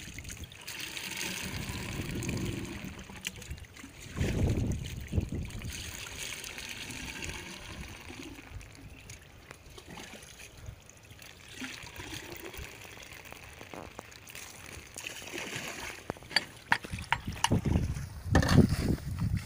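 Water poured from a plastic bucket into the pipe of a small diesel water pump, trickling and splashing in, priming the pump before it is started. Sharp clicks and heavier knocks near the end as the pump's engine is handled.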